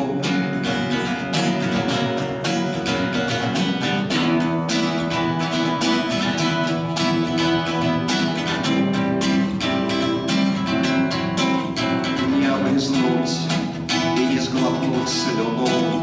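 Acoustic guitar strummed in a steady rhythm, chords ringing on: a solo instrumental passage between the sung verses of a guitar song.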